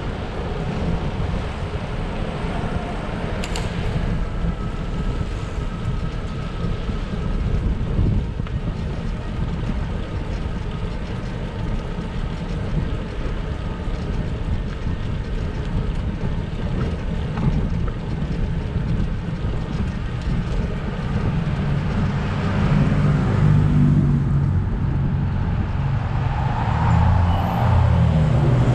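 Wind buffeting the microphone of a camera on a moving bicycle, over the steady rumble of tyres rolling on asphalt; the buffeting grows heavier in the last few seconds.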